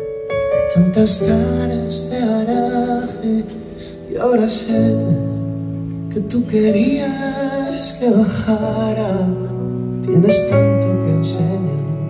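A male singer's voice performing a song live over held keyboard chords.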